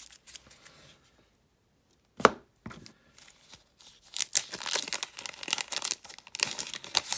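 Thin plastic card sleeves and a plastic bag crinkling and rustling as a stack of trading cards is handled. There is a single sharp tap about two seconds in, and the crinkling is densest in the second half.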